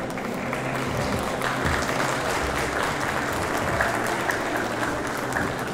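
Audience applauding, a dense patter of clapping that swells about a second and a half in.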